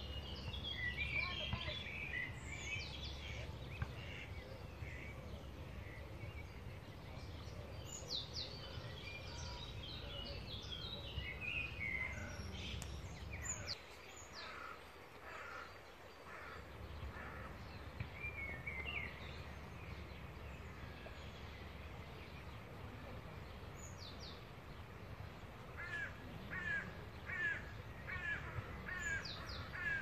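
Birds singing and calling by a river: short chirps and falling whistles, with a quick run of repeated notes near the end. Under them runs a low rumble that fades for a couple of seconds midway.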